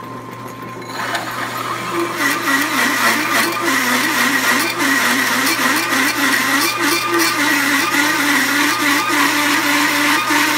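Drill press with a large hole saw cutting into quarter-inch steel plate at its slowest speed. The motor runs lightly for about a second, then the teeth bite and a loud grinding cut sets in, with a squealing tone that wavers up and down.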